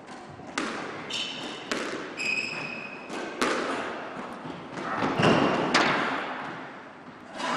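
Squash ball being played: a series of irregular sharp thuds as the ball strikes rackets and court walls, echoing around the squash court. Two short high squeaks from shoes on the wooden court floor come about one and two seconds in.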